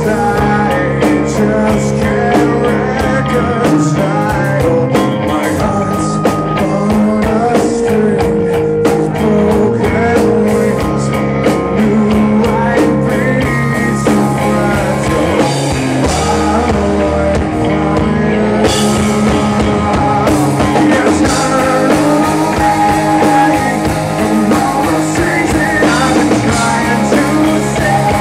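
Live rock band performing loud and close: electric guitars and a drum kit, with a male lead singer.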